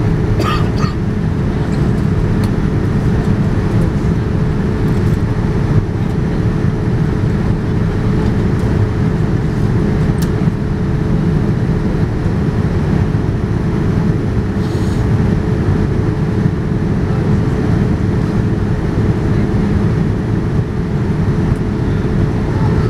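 Steady cabin noise of a Boeing 787-9 in flight, heard from a window seat: the even rush of airflow and jet engines, with a steady drone just under 500 Hz.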